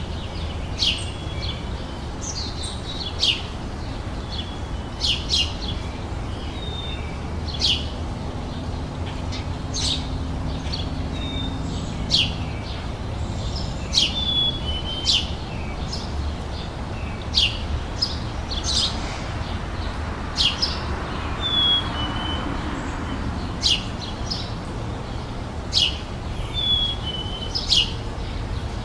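Songbirds chirping in a garden: short, sharp high chirps about once a second, some with a brief falling whistle, over a steady low rumble.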